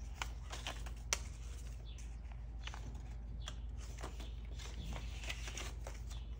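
Paper banknotes being handled and counted by hand: soft, irregular rustles and flicks, with one sharper click about a second in, over a low steady hum.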